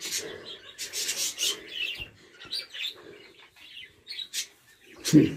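Hands rummaging and rubbing through the material of an animal's nest, giving irregular rustling scrapes, while small birds chirp. A short, louder low sound comes just before the end.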